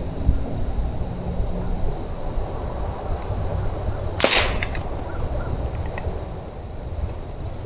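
One shot from a Huben K1 PCP air rifle, a single short, sharp crack about four seconds in, followed by a few faint ticks.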